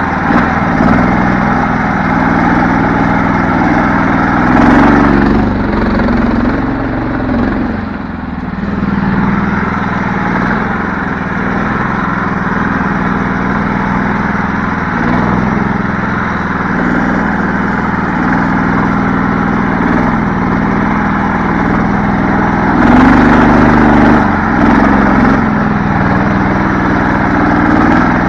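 Engine of a homemade karakat all-terrain vehicle running under load as it drives through ruts, the revs rising briefly about five seconds in and again a few seconds before the end.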